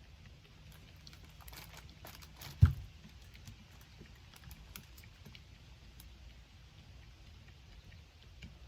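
Light clicks and handling noise from a hydraulic cable crimper, copper lug and heavy battery cable being positioned for a crimp, with one sharp knock about two and a half seconds in.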